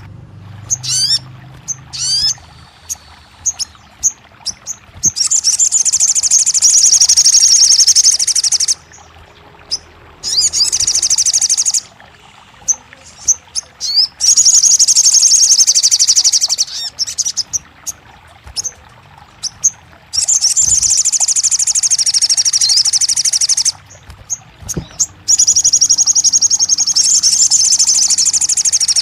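Sogon bird calling: loud, dense, high-pitched trills of about three seconds each, five of them, separated by short rising chirps. These are calls played to coax a sogon that has gone quiet into singing back.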